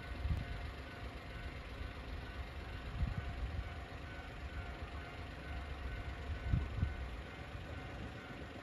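Steady low outdoor rumble, with three brief swells of low noise: just after the start, about three seconds in and about six and a half seconds in.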